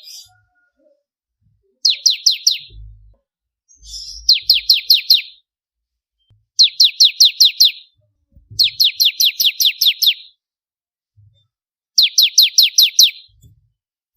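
Bar-winged prinia (ciblek kristal) singing five loud, rapid phrases, each a run of about eight quick, high, downward-sweeping notes lasting about a second, with pauses of one to three seconds between them.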